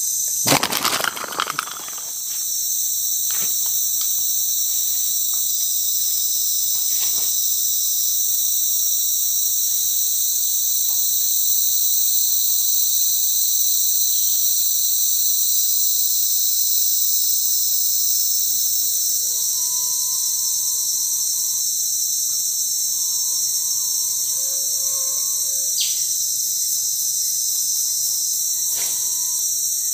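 Steady, shrill chorus of forest insects, several high buzzing bands going on without a break. A brief loud rustle comes near the start.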